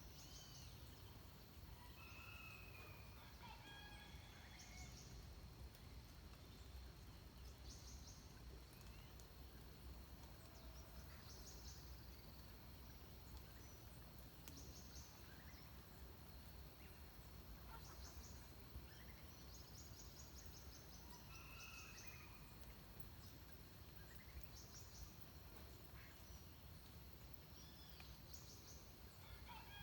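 Faint dawn chorus of forest birds: a short high trill repeats every two to three seconds, with scattered whistled calls lower down. Under them runs a thin, steady high tone and a soft, even background hiss.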